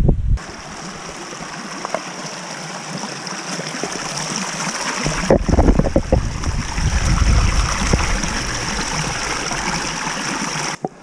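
Small mountain stream splashing and trickling steadily over rocks, with a hand held in the falling water. A low rumble joins about halfway through.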